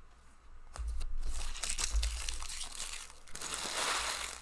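Trading-card packaging crinkling and tearing as it is handled and opened. It starts about a second in and comes in two stretches, the second one higher-pitched and hissier.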